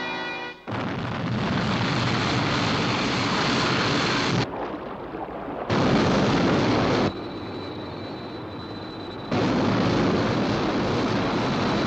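Jet-rocket roar of the Sky One interceptor launching from the sea and climbing away: a loud, steady rushing roar. It drops back twice, about four and a half seconds in and again around seven seconds in, with a thin high whine during the second lull.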